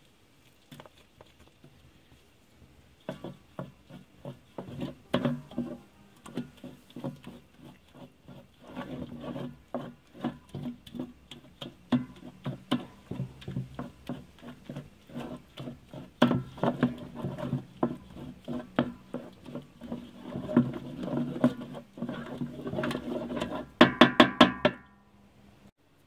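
A wooden spoon stirring, scraping and knocking against a large metal pan, with many irregular knocks. Near the end comes a quick even run of about six sharp taps.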